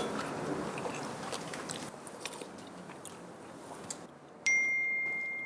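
Faint chewing and eating sounds at a meal. About four seconds in comes a single clear, high ding that rings on and slowly fades.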